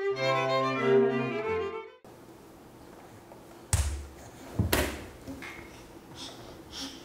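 A short bowed-string music cue, violin and cello, lasting about two seconds, then two sharp thumps about a second apart.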